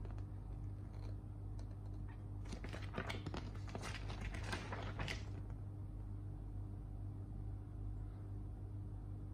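Paper rustling and crackling as a model-kit instruction booklet is unfolded and its pages handled: a burst of crackles lasting a few seconds in the middle, over a steady low hum.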